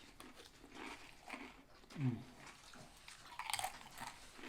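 Chewing a sub sandwich, with wet mouth smacks and small clicks scattered throughout. About two seconds in comes a short hummed "mm" that falls in pitch.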